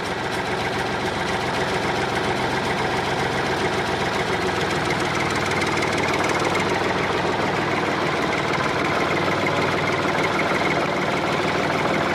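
Steady diesel tractor engine sound, running at an even idle-like pace with a knocking note, as a toy tractor tows a toy dump truck through sand.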